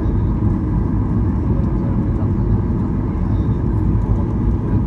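Steady low rumble inside the cabin of a Boeing 737-800 taxiing, its CFM56 turbofan engines running at taxi power.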